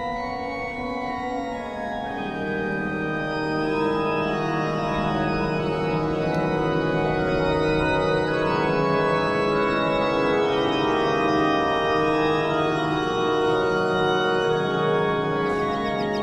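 Church organ playing slow, sustained chords that swell over the first few seconds and then hold steady. Short high chirps come in near the end.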